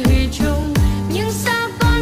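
Pop song with a sung vocal over an electronic beat, deep kick drums that drop in pitch after each hit.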